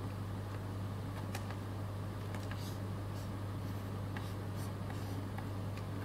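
Scattered light clicks and taps from a keyboard and a pen-tablet stylus being worked, over a steady low hum.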